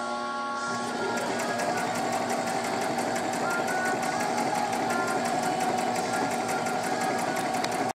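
Brother electric sewing machine running steadily as fabric is fed through, the needle stitching at an even rhythm of about six strokes a second over the motor's constant tone.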